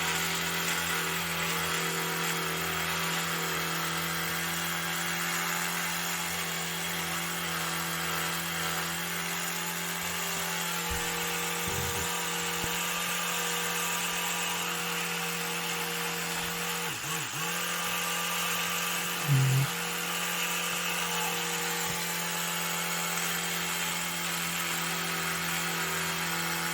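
Electric toothbrush running with a steady buzzing hum as its head is worked over the teeth of a plastic 3D-printed dental model, with a short louder bump about nineteen seconds in.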